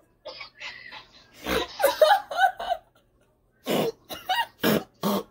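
A woman's stifled laughter behind her hand: breathy bursts of giggling, with a run of four short bursts of laughter near the end.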